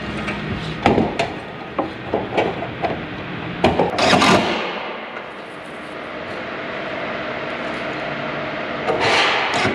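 Steel truss members and trigger clamps knocking and clattering as the light-gauge steel truss is set and clamped on the assembly table, loudest about four seconds in. After a quieter stretch, a short louder burst of noise comes near the end.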